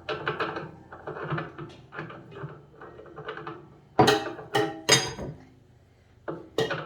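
Metal parts of a bowl chopper clinking and knocking as the blade's locking nut is fitted on the shaft: light clatter, then three sharp ringing metal clinks about four seconds in, and two more knocks near the end.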